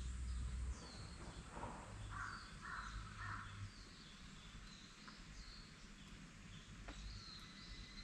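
A crow cawing three times in quick succession about two seconds in, over faint high chirping of small birds in woodland.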